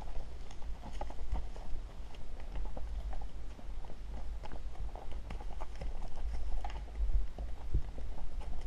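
Horses walking on a rocky woodland trail: shod hooves clip-clopping and knocking on stones in an uneven rhythm, over a steady low rumble.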